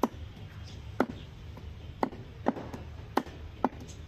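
A large curved butcher's knife chopping goat leg meat on a wooden log chopping block: about six sharp chops, spaced half a second to a second apart.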